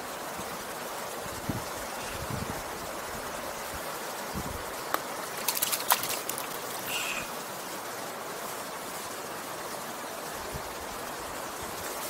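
Mountain stream running steadily over stones, with a few brief splashes and clicks about halfway through from hands working in the shallow water as a trout is released.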